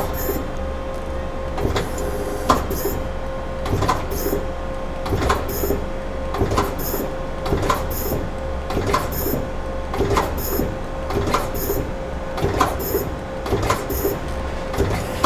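Daewoo Lynx 200B CNC lathe running, its turret indexing over and over with a clunk and a short hiss about once a second, over a steady machine hum with a constant whine.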